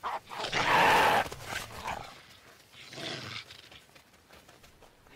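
Two rough, breathy animal calls: a longer one about a second in and a shorter one around three seconds in.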